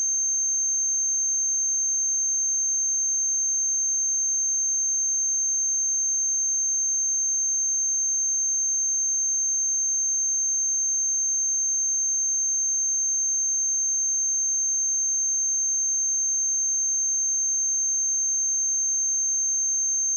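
Steady pure sine-wave test tone at 6335 Hz, a single high-pitched whistle-like tone held at constant level without change.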